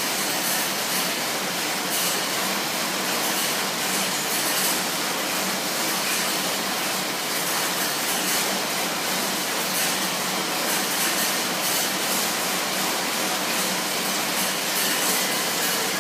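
Schwinn AirDyne air bike's fan wheel spinning fast under hard pedalling, making a steady loud whooshing rush of air.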